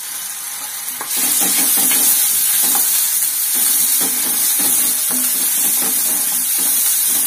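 Chopped onions frying in hot oil in a kadhai, sizzling, with a wooden spatula stirring and scraping the pan. The sizzle gets louder about a second in.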